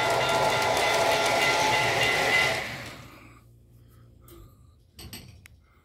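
Model train running on the layout track: wheels rolling and the locomotive's motor humming steadily. About three seconds in it fades out as the train stops, followed by a few faint clicks.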